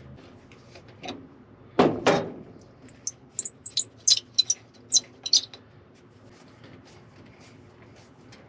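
Pipe wrench unscrewing the metal insert of a broken knob from a half-track's transfer-case lever. There is a loud strained sound about two seconds in, then a run of sharp metallic clicks and ticks over the next few seconds as the wrench grips and turns on the insert.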